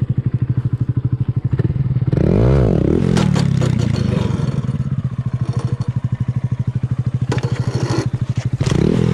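Honda Grom's single-cylinder engine idling with a fast, even pulse, given one quick rev about two seconds in that rises and falls in pitch, and starting to rev again near the end. Clattering, scraping knocks follow the first rev and come again about seven seconds in.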